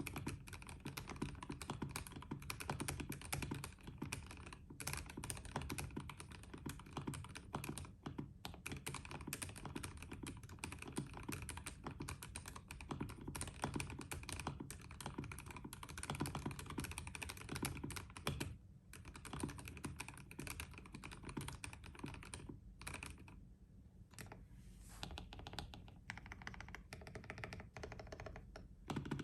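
Custom 60% mechanical keyboard being typed on fast: lubed Cherion frankenswitches (Gateron bottom housings, Cherry RGB tops) in an acrylic sandwich-mount plate, with lubed screw-in stabilisers. The keystrokes thin out with short pauses about two-thirds of the way through.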